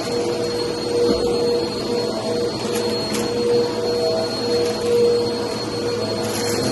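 Vacuum cleaner running steadily on carpet, its motor giving a constant whine over the suction noise, with a couple of brief high ticks midway.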